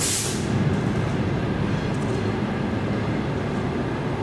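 Steady low rumble of a TEM18V diesel shunting locomotive and a passenger train rolling into the platform, with a short hiss at the very start.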